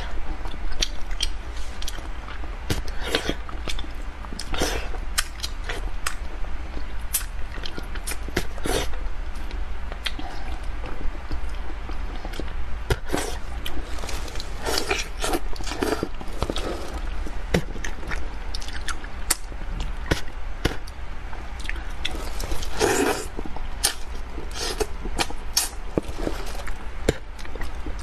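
Close-miked eating of spicy braised fish: chewing, lip smacks and sucking at irregular intervals, with one longer, louder slurp-like sound about 23 seconds in. A steady low hum runs underneath.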